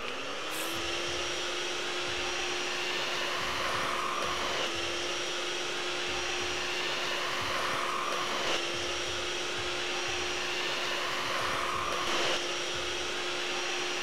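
Miele Triflex HX1 cordless stick vacuum spinning up and then running with a steady motor whine and suction hiss. Its electro brush powerhead is sucking up spilled ground coffee along the edge of a hardwood floor.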